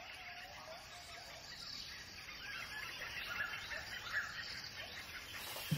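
Faint forest ambience with birds calling: a short call repeated several times in the first second, then scattered higher chirps.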